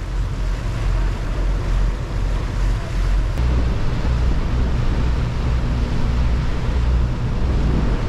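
Wind buffeting the microphone on a boat under way at sea, a heavy uneven rumble over a steady rush of water along the hull.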